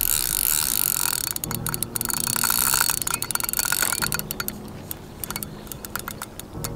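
A carp fishing reel's ratchet clicking in rapid, irregular runs as a hooked carp is played. The clicks start about a second in and thin out near the end.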